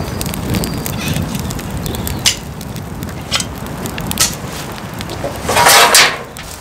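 Dry grass tinder burning in a pit, with scattered sharp crackles. A short, loud rush of noise comes near the end.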